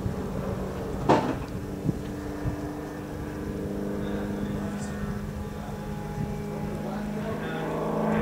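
Piston engine and propeller of an aerobatic plane droning overhead as a steady hum, growing louder near the end as the plane comes closer. A sharp knock about a second in.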